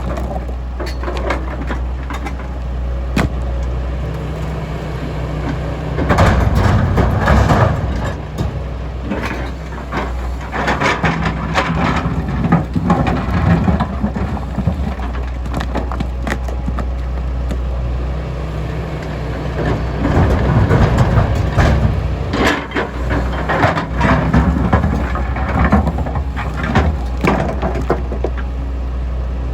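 MST M220LC excavator's diesel engine running steadily as its bucket digs and dumps broken stone, with loud crunching and clattering of rock at about six seconds in, again between ten and fourteen seconds, around twenty seconds, and near the end.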